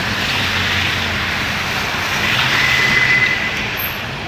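Steady rush of rain and of car tyres running through floodwater on a flooded street, with car engines running low underneath. A brief high tone sounds about two and a half seconds in.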